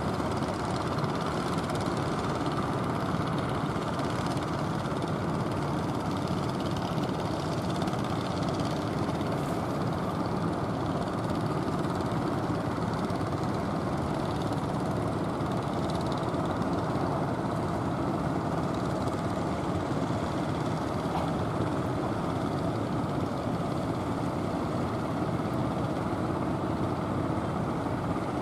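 Engines of outrigger fishing boats running steadily under way, a continuous low drone without breaks.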